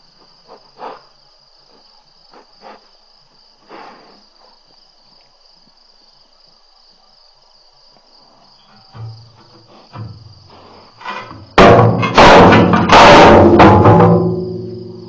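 Crickets chirping steadily, with a few faint knocks. About twelve seconds in, a burst of very loud knocking and rubbing right on the microphone lasts a couple of seconds and fades: a lion handling the mic.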